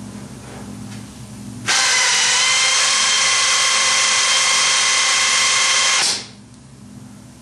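Motorised dispensing gun of the 3M Dynamic Mixing System running for about four and a half seconds as body filler is pushed out through its mixing nozzle onto a spreader. It starts abruptly a couple of seconds in and gives a steady, high-pitched whine before cutting off.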